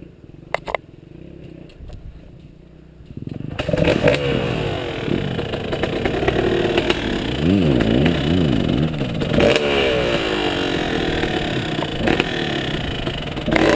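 Dirt bike engine, quiet at first, then from about three and a half seconds in revving hard on the climb, its pitch rising and falling again and again with the throttle. Two sharp knocks come under a second in, and there is clatter from the ride over the rough track.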